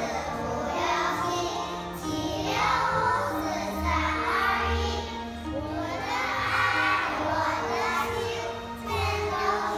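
A group of young children singing together in unison, with an instrumental accompaniment playing held bass notes under them.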